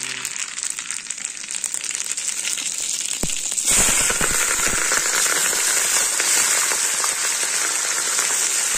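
Hot oil in a wok crackling and popping as spice seeds are tipped in, then sizzling louder and steadily from about four seconds in as sliced onions go into the oil.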